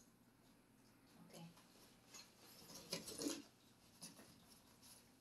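Faint rustling and scuffing of a padded dog jacket being pulled over a small dog in a fabric wagon, with a louder flurry of rustling about three seconds in.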